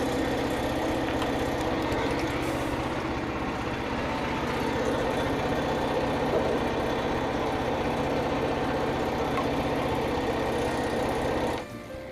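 Small gasoline engine of a portable band sawmill running steadily at an even speed, cutting off abruptly near the end.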